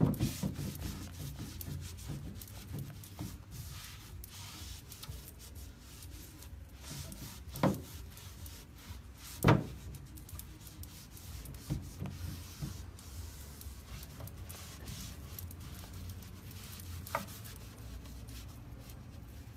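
A soft cloth rubbing and wiping over a painted wooden dresser, buffing brown aging wax back off the surface. A few short knocks come through the rubbing, the loudest about halfway through.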